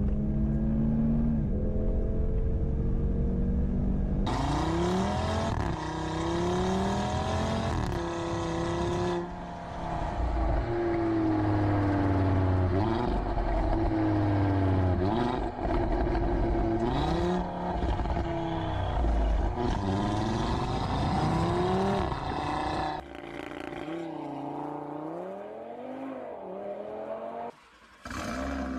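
Audi RS3's turbocharged five-cylinder engine pulling hard at high revs, then rising and falling again and again as it revs up and drops back through gear changes. It runs quieter in the last few seconds.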